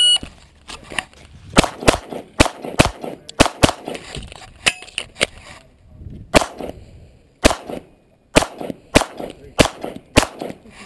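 A shot timer's electronic start beep, then a string of about fifteen 9mm Glock pistol shots fired in quick pairs and singles, with a pause of about a second near the end.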